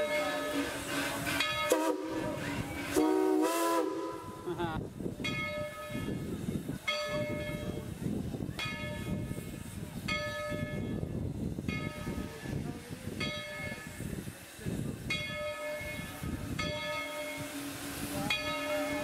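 Baldwin steam locomotive No. 190 sounding a loud steam whistle that bends in pitch a few seconds in, then its bell ringing about once a second over hissing, chuffing steam exhaust as it pulls away.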